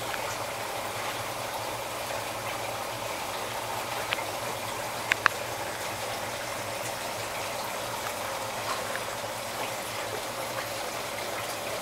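Air from a rigid airline bubbling steadily into a small seawater kreisel bowl, with a low steady hum underneath. A few short sharp clicks stand out once around four seconds in and twice around five seconds in.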